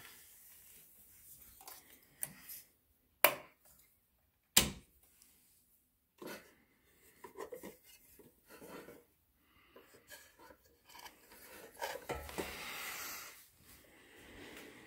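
Scattered clicks, knocks and rubbing, with two sharp knocks, the loudest, about three and four and a half seconds in, and a brief rushing noise near the end.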